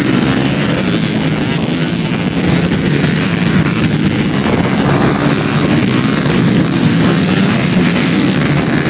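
Several motocross dirt bike engines running together, a steady, loud din.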